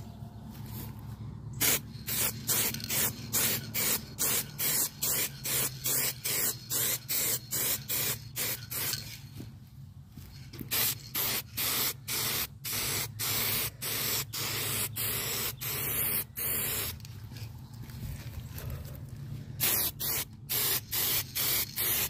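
Aerosol spray-paint can spraying onto a microwave's metal casing in short repeated bursts, about two to three a second, with a few longer steady passes.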